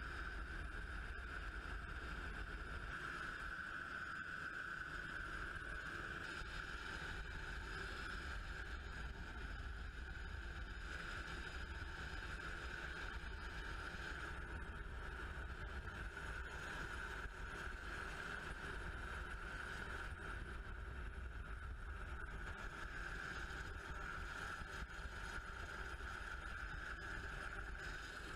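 Steady rescue-helicopter noise heard from inside the cabin at the open door: a constant high whine over a continuous low rumble.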